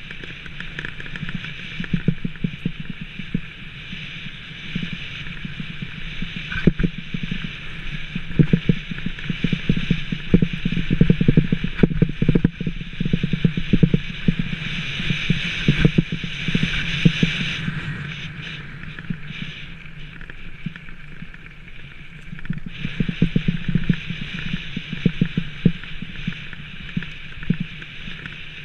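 Rockrider 520S mountain bike rolling fast down a rough gravel track: a steady rushing hiss with frequent knocks and rattles as the bike bounces over stones, busiest through the middle.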